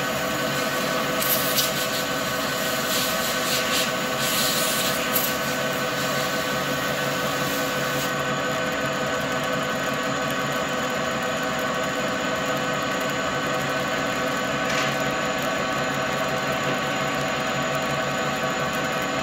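Okuma lathe running, its headstock gearing giving a steady multi-toned whine as the chuck turns a steel shaft. A few short hisses from an air blow gun come in the first five seconds and again around eight seconds, weak because the compressor is off and only a little pressure is left in the line.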